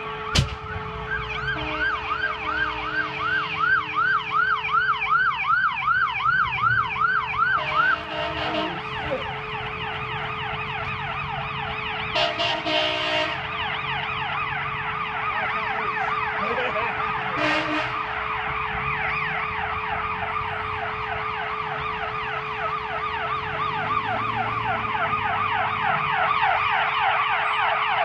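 Emergency vehicle sirens sounding in repeating sweeps, with slower cycles first and then faster, overlapping cycles as more units close in. Short horn blasts break in a few times. A single sharp bang comes just after the start.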